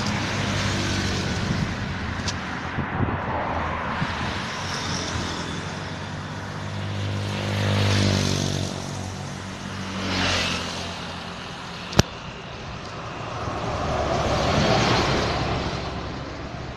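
Roadside traffic: vehicles passing close by one after another, their engines and tyre noise swelling and fading several times. There is a single sharp click about twelve seconds in.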